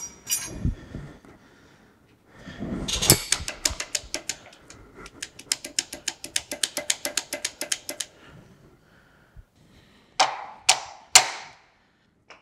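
Ratchet wrench clicking rapidly, about eight clicks a second for several seconds, as the set screw on a clutch yoke is backed out. Near the end come three sharp knocks, each with a short ring.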